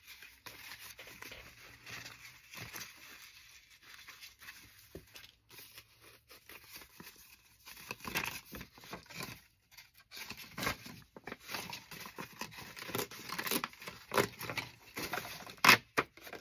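Paper index cards being handled and sorted: rustling, flicking and sliding of card stock, sparse at first and busier and louder in the second half, with one sharper snap near the end.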